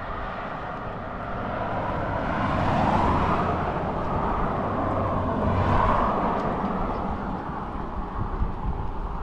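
Passing traffic on a road: two vehicles go by, their noise swelling and fading about three and six seconds in, over steady outdoor background noise.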